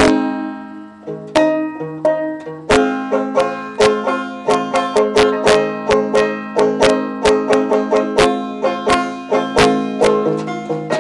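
Solo banjo being picked: quick plucked notes with low notes ringing on underneath. The picking thins out for about two seconds near the start, then carries on at a steady pace.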